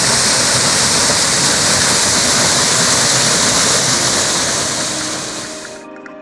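Waterfall pouring steadily, a dense hiss of falling water. It fades out near the end as soft music with held tones comes in.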